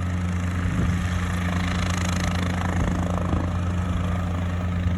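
Cabri G2 helicopter's four-cylinder Lycoming piston engine and rotor system running with a steady low drone.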